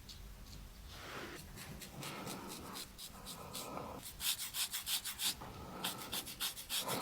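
A razor scraping over a man's stubbled face in quick, short strokes, in two runs from about four seconds in. Before that come soft, slow breathing sounds.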